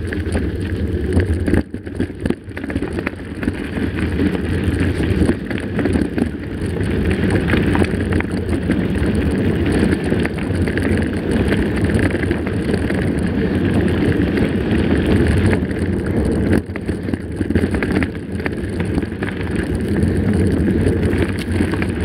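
Mountain bike rolling along a gravel dirt road, heard from a handlebar-mounted camera: a steady low rumble of tyres on gravel mixed with wind on the microphone, with small rattles and clicks from the bike.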